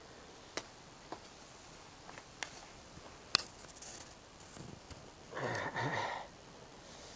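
A few sharp clicks and taps from handling things, the loudest a bit over three seconds in, then a short breathy grunt from a person, about a second long, around five and a half seconds in.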